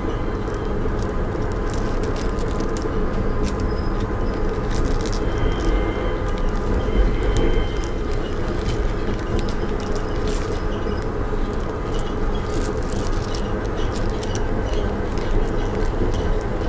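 Uijeongbu LRT rubber-tyred light-metro train running, a steady rumble with a faint steady whine, and scattered light clicks and crackles throughout.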